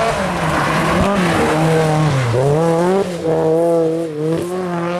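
Rally car engine revving hard under load, its pitch dipping about two seconds in and then climbing again and holding high.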